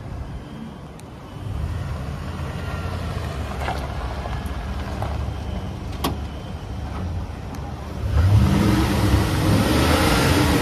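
Ford F-250's 6.2-litre gas V8 running. It gets louder about eight seconds in, with its pitch wavering.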